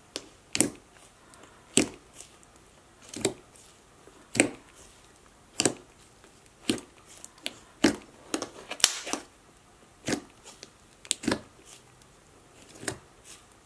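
Thick slime being poked and pressed down in a clear plastic tub, giving sharp bubble pops about once a second.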